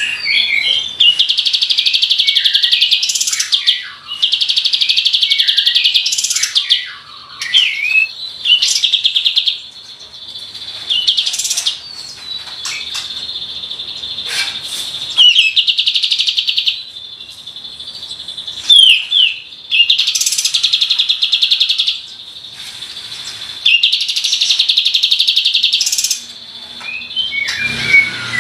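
Kapas tembak bulbul singing: rapid rolling trills of about a second each, repeated every few seconds, broken up by short whistled notes.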